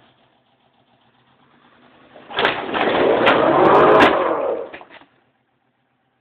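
Ford Bronco engine idling faintly, then revving hard for about three seconds, rising and then falling in pitch, over a loud rush of noise with a few sharp knocks as it yanks a wrecked minivan that has no front tires. It cuts back to a faint idle near the end.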